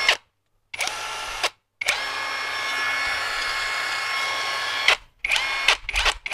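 Hukan X4 Pro cordless impact wrench running free with no load, in trigger bursts. A run ends just as it begins, a short run comes about a second in, then a steady whine of about three seconds, each cutting off abruptly. Several clicks and knocks follow near the end.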